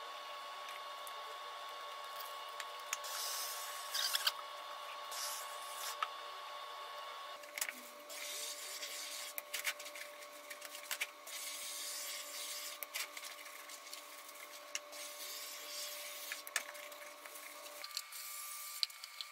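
Plastic release film crinkling as it is peeled off a waterproofing membrane sheet, and the sheet rubbed and pressed down by gloved hands, in irregular short scraping and rustling bursts over a faint steady hum.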